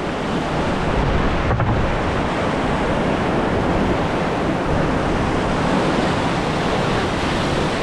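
Whitewater of a river rapid rushing loudly and steadily around a small boat.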